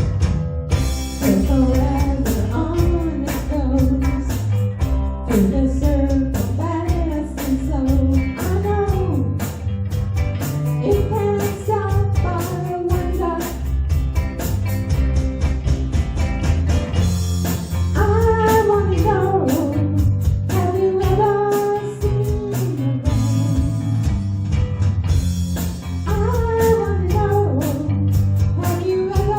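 A band playing a blues-rock song: a lead vocal sung over guitar, bass and a steady beat.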